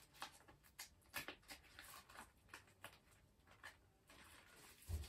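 Faint handling noise of photocards and plastic binder sleeves: scattered light clicks and short rustles, with a soft thump just before the end.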